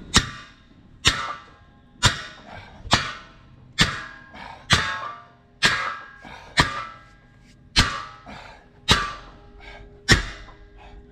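Hammer blows on the steel gang shaft of a tractor disc harrow, about one a second, each with a short metallic ring, driving the square shaft out of the disc gang.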